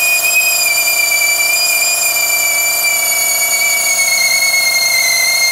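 Handheld rotary tool with a sanding drum running at high speed, sanding old paint off a model jet's body. It makes a steady high whine whose pitch sags slowly as the drum is pressed onto the work.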